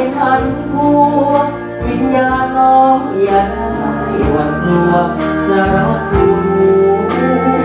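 Thai luk thung song: a man singing into a microphone over an instrumental backing with plucked guitar.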